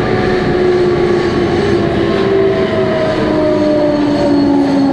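Running sound heard aboard a Meitetsu 200 series electric train in a subway tunnel: steady wheel and rail noise with the whine of the traction motors. The motor whine falls slowly in pitch as the train slows.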